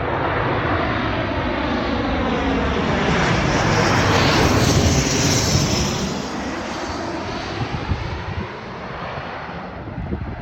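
Jet airliner on landing approach passing low overhead. Its engine roar builds, peaks about halfway through with a sweeping, phasing tone, then fades as it goes past.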